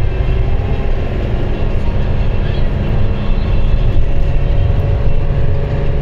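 Engine and road noise of a moving vehicle heard from inside the cabin: a steady low drone with a constant engine tone.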